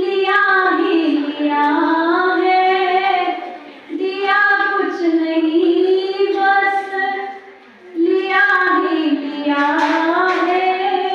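A woman singing solo into a microphone, without accompaniment, in long held phrases with short breath pauses about every four seconds.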